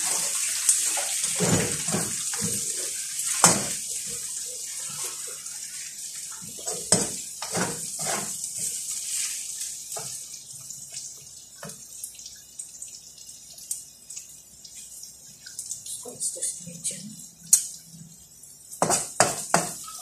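Onions and chicken frying in a pan with a sizzle that fades over the first half, while a spatula scrapes and knocks against the pan as the food is stirred.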